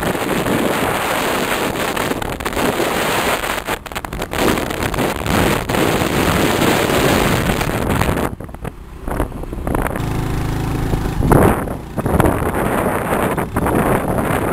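Wind buffeting the microphone of a moving vehicle, mixed with road and vehicle noise. A little past the middle the wind noise dies down briefly and a steadier hum comes through for about a second before the rush returns.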